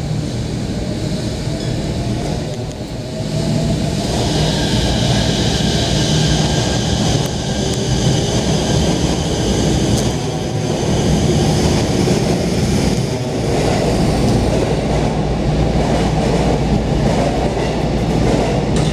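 Chiba Urban Monorail suspended train running slowly into a station platform and drawing to a stop, its drive and running gear giving a steady hum and rumble. A high whine joins in about four seconds in and holds.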